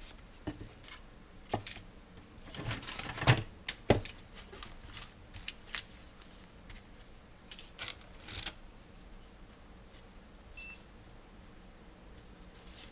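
Handling noise from gloved hands working wires and multimeter test leads over crumpled kraft paper: rustling and scattered clicks, with two sharp knocks about three to four seconds in. A short electronic beep from the digital multimeter comes about ten seconds in.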